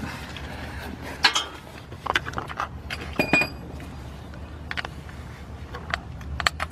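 Scattered light metallic clinks and taps, one with a short bright ring about three seconds in: metal tools and parts being handled under the car.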